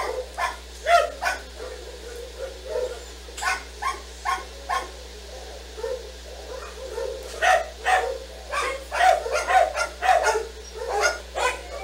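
Dogs barking repeatedly, short barks in clusters with pauses between them.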